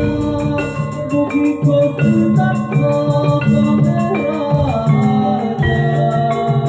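Live gamelan music accompanying a jaranan horse dance: bronze metallophones playing a busy repeating melody over deep drum strokes.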